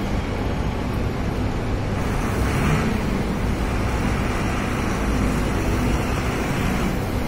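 Truck tippler platform running as it tilts a loaded coal truck nose-up: a steady machinery rumble and hum, with a brief rise in hiss about two and a half seconds in.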